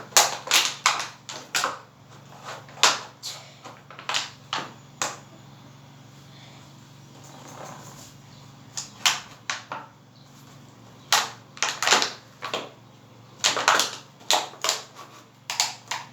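Bursts of sharp, irregular clicks and knocks as a plastic bottle is handled and fitted onto a bicycle against the wheel, coming in several clusters with short pauses between.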